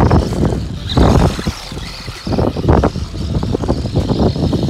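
Funtech 1:18 electric RC truck driving over a gravel driveway: a faint, steady high motor whine under loud, irregular rushing surges of noise that come and go about once a second.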